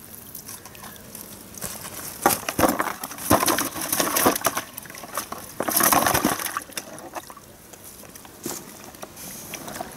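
Water splashing and sloshing in irregular bursts, loudest about two to four seconds in and again around six seconds in, as the catch is handled and let go back into the lake.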